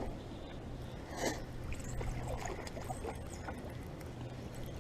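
Water splashing and trickling as a hooked bass is played and landed at the water's edge, loudest about a second in, over a low steady hum.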